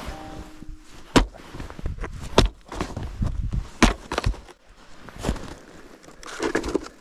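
Footsteps of a person walking outdoors, with a sharp heavy step about every second to second and a half and scuffing between them.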